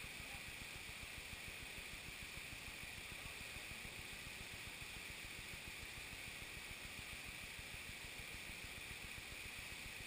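Steady rushing of a stream and waterfall over rocks into a forest pool, heard as an even hiss with no breaks.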